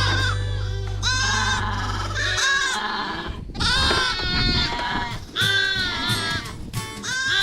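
Many lambs bleating over and over, calls overlapping, over steady background music. A low hum runs underneath and stops a little over two seconds in.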